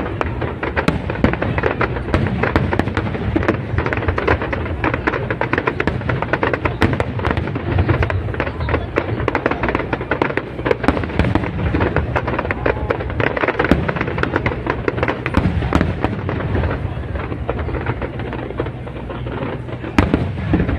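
Aerial fireworks display: a dense, continuous barrage of bangs and crackling over a low rumble, easing slightly near the end before another loud bang.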